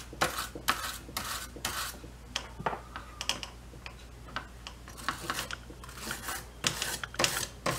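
Scrubbing on the solder side of a freshly recapped amplifier circuit board: a run of short, irregular scratchy strokes, busier in the second half.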